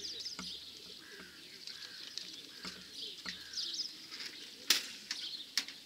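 Birds calling and wings fluttering from racing pigeons held in a transporter's crates, with a few soft thuds and sharp knocks, the loudest about three-quarters of the way through.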